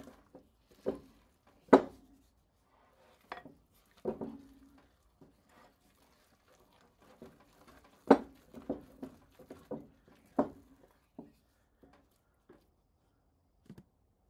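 Irregular knocks and clinks of kitchen utensils and dishes being handled, a dozen or so, with two louder knocks about 2 s and 8 s in.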